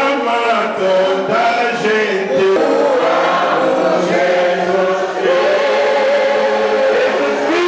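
Church worship singing: men singing into microphones with a group of voices joining in, in long held notes that glide between pitches.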